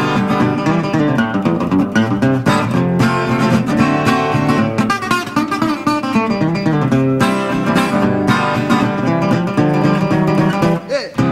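Solo steel-string acoustic guitar fingerpicked in a fast country-blues style, an instrumental break with picked bass notes under treble runs. The playing drops out briefly just before the end.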